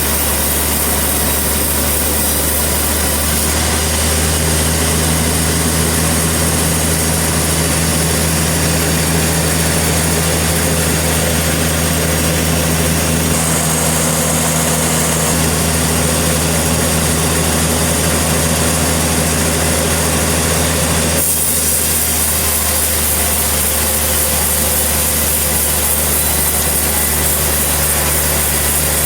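Engine-driven portable sawmill running steadily, its blade sawing through a trembesi log. The sound changes abruptly about two-thirds of the way through.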